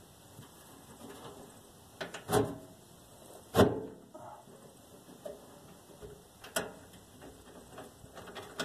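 A few scattered knocks and clunks of tools and metal parts being handled during hands-on work, with the loudest sharp knock about three and a half seconds in.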